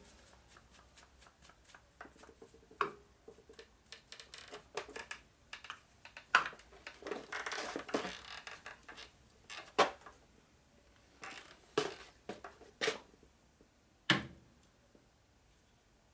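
Irregular metallic clicks and knocks of tools and dial indicators being handled and set up on a metal lathe, with a stretch of scraping and rustling about seven to eight seconds in.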